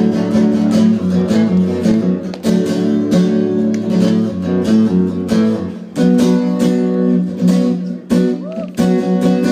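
Live music with no singing: a guitar strumming chords in a steady rhythm. A lower bass part drops out about six seconds in, leaving the guitar alone.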